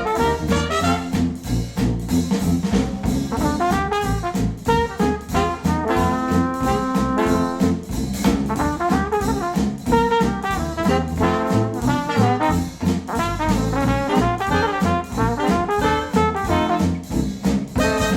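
Instrumental music with brass horns, trumpet and trombone, over a steady beat, played back through Focal Aria 906 bookshelf speakers driven by a NAD C 338 integrated amplifier.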